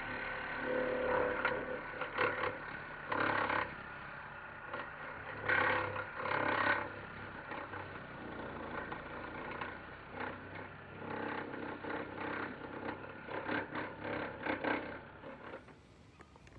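Ego 56-volt battery multi-tool with the edger attachment running: a steady electric motor whir with repeated louder bursts of scraping and clatter as the blade digs into the ground. It fades out near the end.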